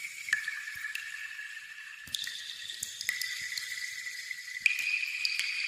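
Water droplets falling one at a time into water, each plink leaving a clear ringing tone that lingers until the next, about eight drops at an irregular pace, over a faint steady hiss.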